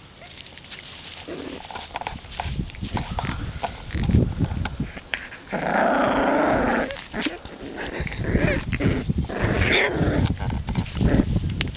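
Boxer puppies about four weeks old growling close to the microphone, among many small knocks and rustles as they nose at the camera; the loudest stretch comes around the middle.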